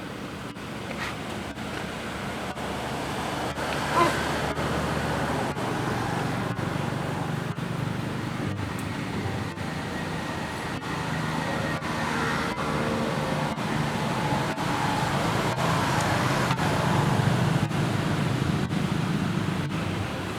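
Road traffic noise, a steady rumble of passing engines that swells and eases, with one brief sharp sound about four seconds in.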